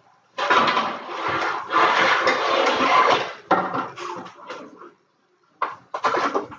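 Baking pans clattering and scraping against each other as one is pulled out of a lower kitchen cabinet, a dense rattle for about three seconds. After a brief pause a few short knocks follow near the end.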